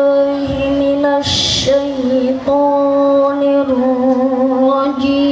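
Children's voices chanting a sari tilawah reading in the melodic Quranic recitation style, holding long notes that waver slightly in pitch, heard through a stage PA system. About a second in there is a short breathy hiss between phrases.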